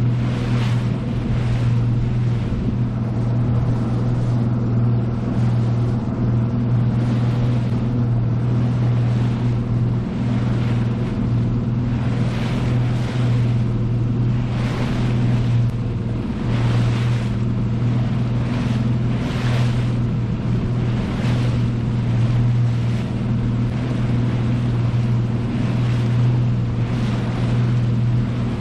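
Outboard engine of a Nitro Z20 bass boat running at low speed with a steady drone, under a rushing noise that swells and fades every second or two.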